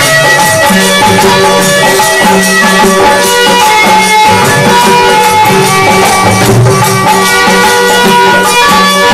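Folk devotional bhajan music: steady held tones over an even beat of rattling, jingling hand percussion.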